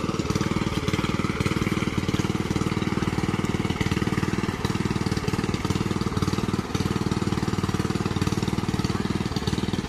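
Engine-driven water pump running steadily with a fast, even throb, and water rushing from its outlet pipe.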